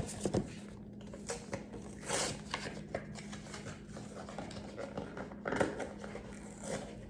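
Small cardboard mini-figure box and its wrapping being opened by hand: scattered clicks and short rustling scrapes, a few louder rustles spread through.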